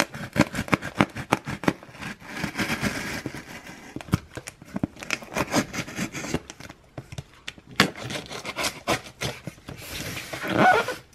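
A scissors blade slicing the packing tape along a cardboard box seam: a run of scrapes, small clicks and crackles of tape, with a louder stretch of scraping near the end.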